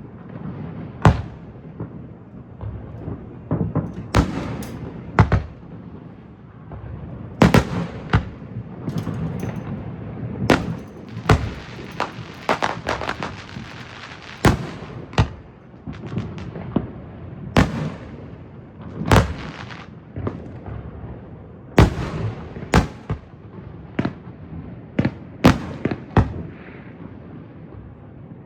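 Fireworks show: aerial shells bursting in irregular succession, about one loud boom a second, over continuous rumble and crackle, with a denser crackling stretch around the middle.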